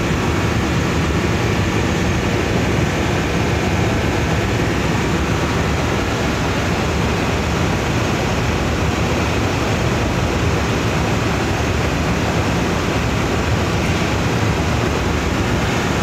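Industrial air-conditioning plant running: a steady, loud, even mechanical rush with a constant hum underneath, unchanging throughout.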